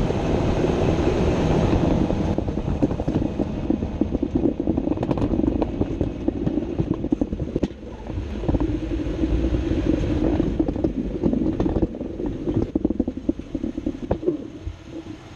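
Running noise from beneath a Jeep Wrangler JK, heard through an underbody-mounted GoPro: a steady rumble with scattered knocks and rattles, easing off and getting quieter near the end.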